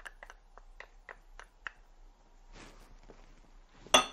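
Faint, soft clicks and squelches as tomato puree is squeezed out into the pan, then one sharp metallic clink with a short ring near the end.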